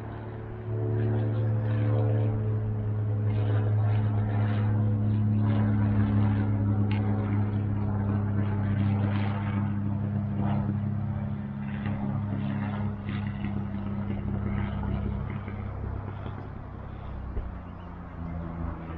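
A low-flying aircraft passing overhead: a steady droning engine hum that grows louder about a second in, holds, and fades away in the last few seconds.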